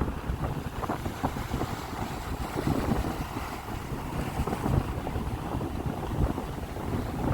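Sea waves washing against the shore, with wind buffeting the microphone in a steady, gusty rumble.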